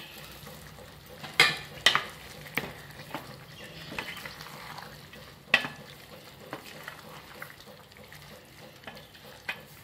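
A spoon stirring fried egg pieces into three-quarters-cooked biryani rice in a steel pot, with a few sharp clinks of the spoon against the pot over the steady sound of the simmering rice.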